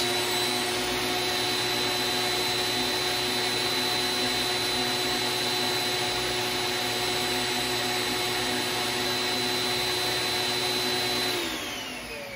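CanaVac XLS990 central vacuum power unit's bypass motor running at full speed with its intake port uncapped: a steady, loud rushing roar with a high whine. About eleven seconds in it is switched off and winds down, its whine falling in pitch as the noise fades.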